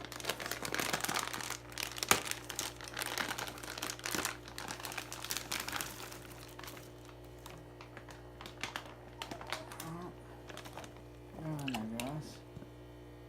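Plastic fish shipping bag being handled and opened, with crinkling and crackling, dense for the first half and dying down to occasional light rustles after about seven seconds. A short murmured voice comes near the end over a steady hum.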